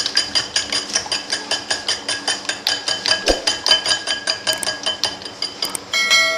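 A metal fork whisking eggs in a glass bowl: quick, even clinks of the fork against the glass, about five a second, with the bowl ringing after each. Near the end the whisking stops and a short ringing chime sounds.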